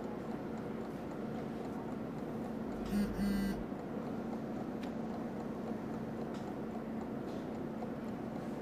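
A mobile phone vibrating with a message alert: two short buzzes about three seconds in, over a steady low hum.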